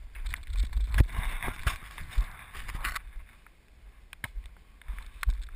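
Wind buffeting the microphone, with a rush of noise for about two seconds from about a second in and a few sharp knocks scattered through.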